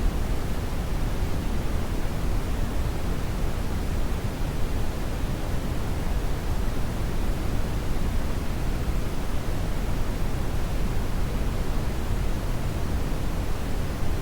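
Steady brown noise: an even, deep rushing hiss, strongest in the bass and fading toward the treble, with no changes.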